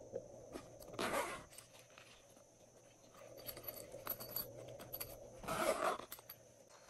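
Handling of a silicone pop-it fidget toy: two brief rustling scrapes, about a second in and again near the end, with a few small clicks between.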